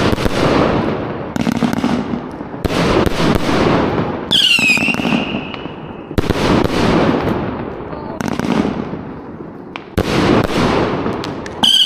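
A large multi-shot fireworks box (cake) firing shot after shot, a sharp bang every one and a half to two and a half seconds, each trailing off in crackling. Twice a whistling shell screams, dropping in pitch and then holding its note, about four seconds in and again near the end.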